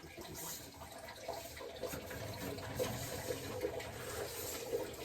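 Water running and splashing from a hydronic boiler's expansion tank as it is unscrewed from its fitting, with small clicks of the wrench on the pipe. The tank's steel shell has failed and leaks, though its bladder is intact.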